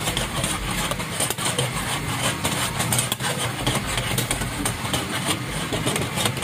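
Chicken pieces deep-frying in a large steel karahi of hot oil: a dense sizzle full of quick crackles, over the steady low roar of the gas burners beneath the pans.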